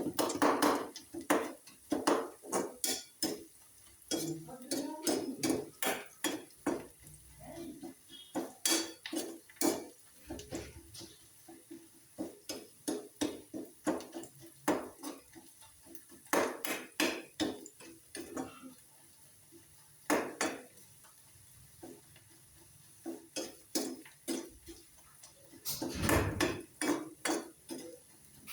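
Kitchen utensils clinking and knocking against dishes and pots, in irregular runs of sharp clacks with short pauses between them.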